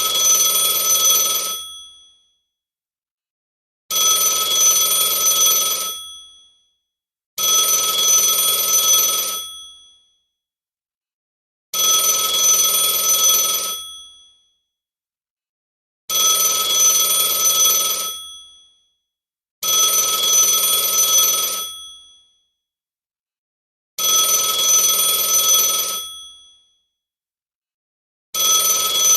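Telephone ringing: repeated rings about two seconds long, each fading out briefly at its end, with a silent gap between and a new ring every three to four seconds.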